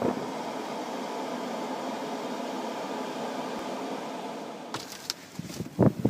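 Steady rushing of blizzard wind and blowing snow. Near the end it turns into uneven, louder gusts buffeting the microphone.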